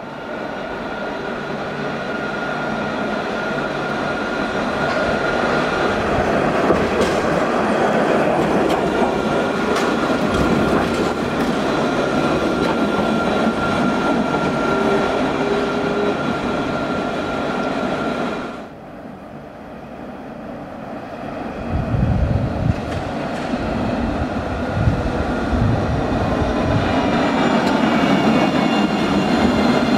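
Alstom Citadis trams running past close by on street track: a steady rolling rumble with a thin, steady high whine from the drive. After an abrupt cut about two-thirds of the way through, a second tram goes by with heavy low rumbling, and its motor whine rises in pitch near the end.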